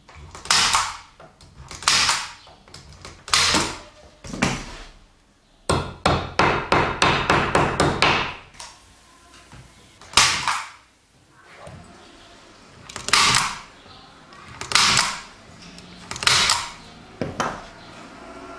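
Hand staple gun firing staples through the screen fabric into the wooden frame, one sharp shot with a brief ring each time. Single shots come every second or two, with a quick run of about ten shots in a couple of seconds in the middle.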